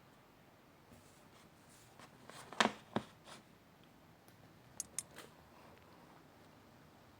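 A few faint clicks and taps from a small plastic figure and its stand being handled: a pair of clicks a bit over two and a half seconds in, then two quick ticks about five seconds in.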